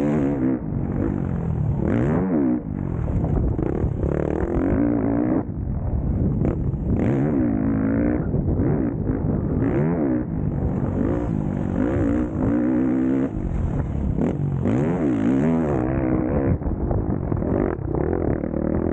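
Motocross dirt bike engine heard on board at race pace, its revs repeatedly climbing and then dropping away as the rider accelerates, shifts and backs off for turns.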